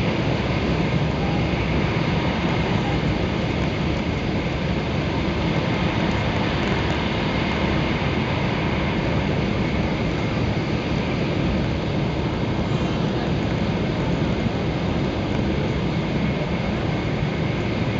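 Steady rumble and rush of a Shinkansen bullet train running, heard inside the passenger car, with a faint steady whine above it.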